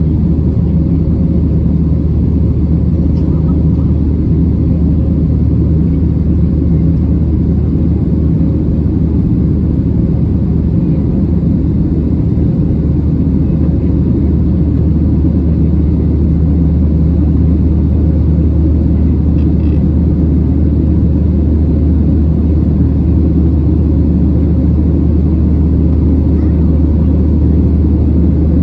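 Steady cabin drone of a Boeing 737-700 in climb: its CFM56-7B engines and the rush of air, heavy in the low range with a faint steady hum above, even in level throughout.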